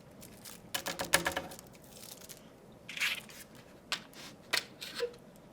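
Handling noises close by: a run of sharp clicks and rustles about a second in, a short rustling burst near the middle, and a few single clicks near the end.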